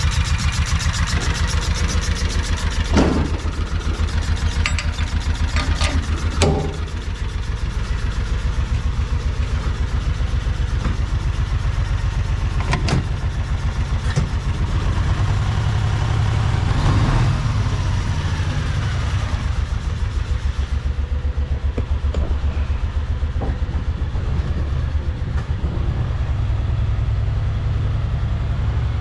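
Vehicle engine running steadily at close range, with two sharp clunks a few seconds in and a brief rise in the engine note about midway.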